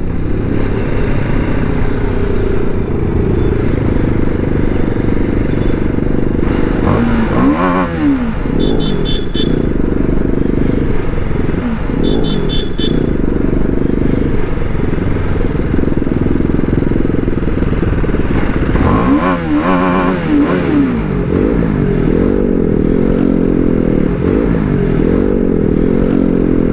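BMW G310RR's single-cylinder engine running at low road speed, its revs rising and falling as it is ridden, with a clear rev change about seven seconds in and again around twenty seconds. Twice, a few seconds apart, a short high pulsing beep sounds.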